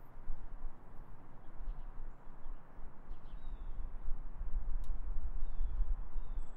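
Outdoor background of a low, uneven rumble, with a few faint, short, high bird chirps.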